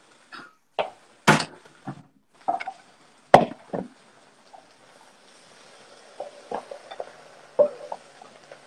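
A wooden spoon and kitchenware knocking against a frying pan and bowls as sautéed spinach and onions are scraped from the pan into a bowl. About six sharp knocks come in the first four seconds, then lighter taps over a faint hiss.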